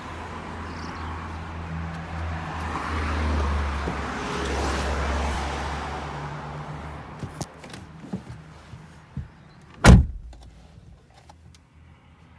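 Car running with a steady low hum and a broad noise that swells and fades, then a few light clicks and one loud sharp thump about ten seconds in.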